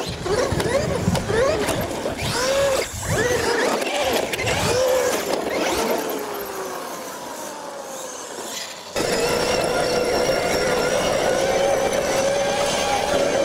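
Traxxas X-Maxx RC monster truck's brushless electric motor whining, its pitch swooping up and down again and again as the throttle is blipped, with rough tyre noise on the dirt. About nine seconds in the sound switches abruptly to a steady, high whine held at speed.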